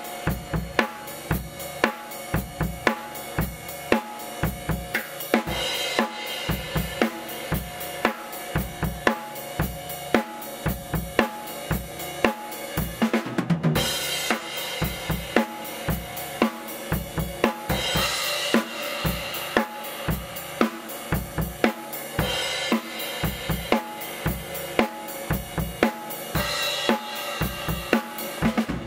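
Acoustic drum kit played in a steady groove: kick drum and snare hits over hi-hat and cymbal wash.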